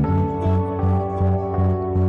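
Background music: a steady low beat under long held notes.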